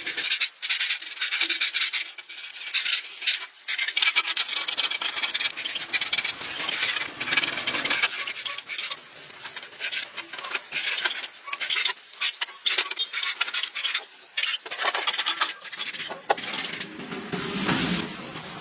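Irregular rasping, scraping strokes of a tool worked against a hard surface, starting and stopping many times.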